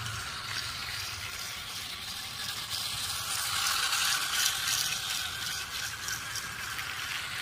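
Battery-powered plastic toy trains running on plastic track: small motors and gears whirring steadily, with the wheels rattling on the track joints. The sound swells about halfway through as a train comes close.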